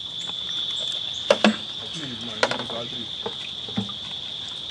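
Crickets keeping up a steady high-pitched trill, with a few sharp clicks and a faint voice in the middle.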